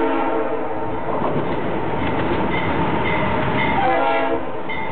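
Norfolk Southern freight locomotives' air horn sounding a chord that stops about a second in, then the loud rumble of the lead diesel engines and wheels passing close by, with a bell ringing steadily. A short horn blast near the end falls slightly in pitch.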